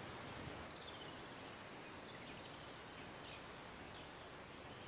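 Faint outdoor garden ambience: steady hiss and a thin steady high tone, with a few short, faint bird chirps about a second in and again around three and a half seconds in.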